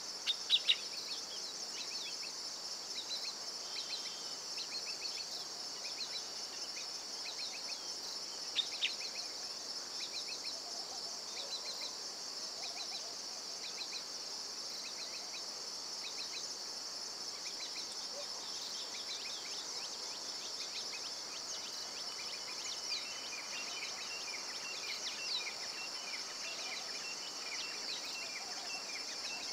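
Steady, high-pitched chorus of insects trilling without pause, with a few short falling bird chirps, the loudest about half a second in and again around eight and a half seconds.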